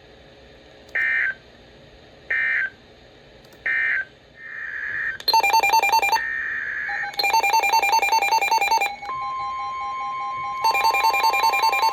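Three short EAS end-of-message data bursts, screeching digital tones about a second and a half apart. About five seconds in, rapid electronic alarm beeping takes over in on-off stretches, and a steady tone near 1 kHz joins near the end.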